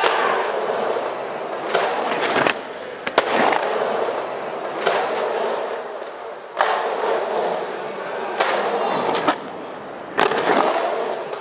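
Skateboard wheels rolling over rough concrete in a skate bowl, the rolling noise swelling and dropping in several runs, with a sharp clack of the board about three seconds in.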